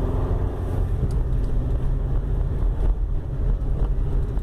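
Road and engine noise heard from inside a moving 2004 Honda Civic: a steady low rumble with a few faint knocks.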